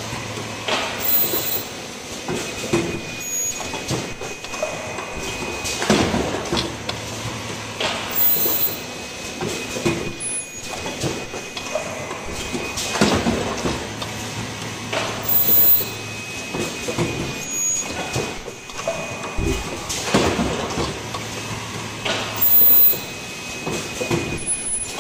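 Automated cup-mask production machine running in a repeating cycle about every seven seconds: its pneumatic pick-and-place arm and cylinders clack and knock, over a steady machine hum and a steady high tone, with a brief very high tone once each cycle.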